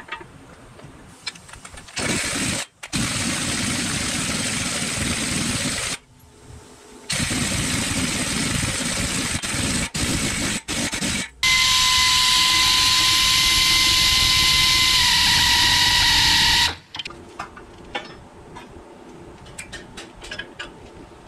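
Pneumatic impact wrench on the front hub's axle nut, run in several short trigger pulls and then one longer run of about five seconds with a steady high whine that dips slightly in pitch before it cuts off.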